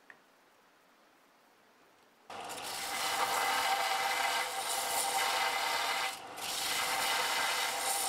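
Einhell belt and disc sander running, a wooden knife-handle block pressed against the moving sanding belt, with a steady motor hum under the grinding noise. The noise starts suddenly about two seconds in, after near silence and a faint click, and lets up briefly about six seconds in.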